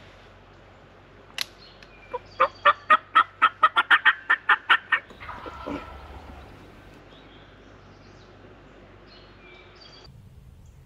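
Wild turkey calling: a run of about fourteen sharp, evenly spaced notes over about three seconds, after a single click.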